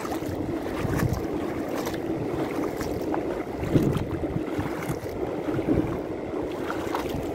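Steady wind noise on the microphone over a low wash of shallow sea water, with a few faint clicks.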